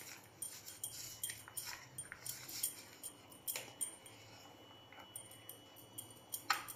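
Hand mixing a grated radish filling in a plastic bowl, with frequent light, irregular metallic clinks from the steel bangle on the mixing wrist knocking against the bowl. Quiet, with a faint low hum underneath.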